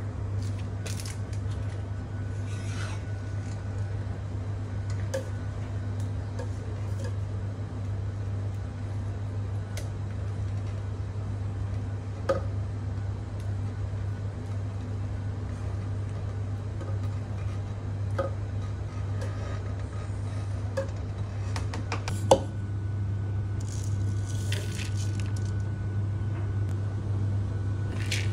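Silicone spatula scraping and tapping against a stainless steel pot and bowl, with a few sharp clinks, over a steady low hum.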